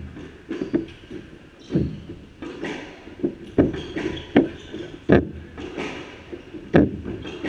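Squash rally: the ball cracking off rackets and thudding against the court walls about six times at uneven intervals, with sneakers squeaking briefly and feet pounding on the wooden floor between shots.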